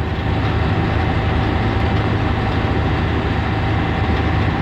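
Blue Bird school bus heard from inside the cabin while driving, with a steady, loud low drone of engine and road noise and no change in pace.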